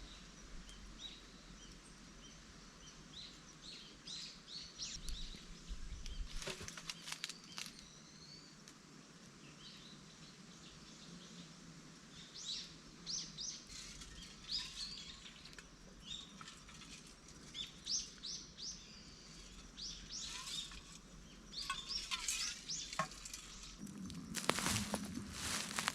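Small birds chirping repeatedly in short, high calls, with a few sharp clicks a quarter of the way in and louder noise near the end.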